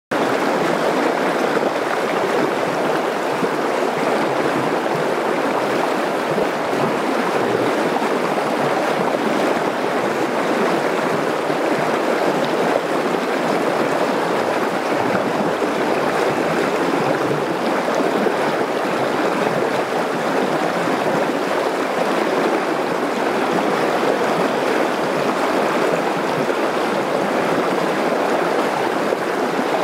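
Fast, shallow river water rushing steadily over a broken, stony riffle.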